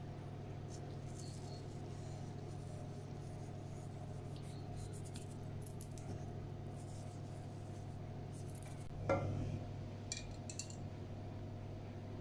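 Light clinks and taps of kitchen containers, a jug and a bottle, being handled over a bowl, with a duller knock about nine seconds in, over a steady low hum.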